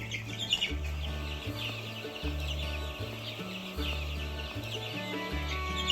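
A flock of hens clucking and calling together in a dense, continuous chatter, over background music with a steady, repeating bass line.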